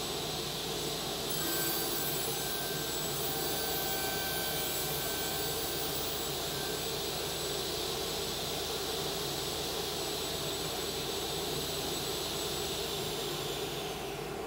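Felder KF700S sliding table saw running with a steady high whine, louder and with extra higher tones for several seconds from about a second and a half in. Near the end the whine falls in pitch and the noise drops off as the saw winds down.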